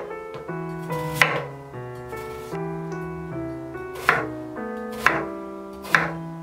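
Chef's knife cutting through a peeled raw potato and striking a wooden cutting board: a few sharp knocks at uneven intervals, over soft piano music.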